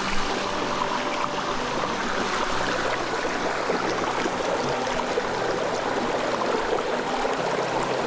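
Steady rush of a warm hot-spring stream running down a series of small waterfalls.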